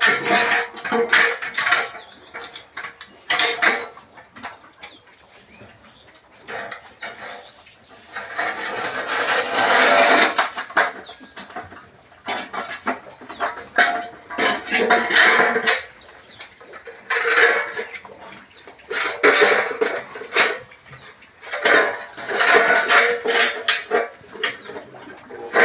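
Livestock pen noise: irregular bursts of clattering and animal noise, with a short high chirp that repeats every second or two.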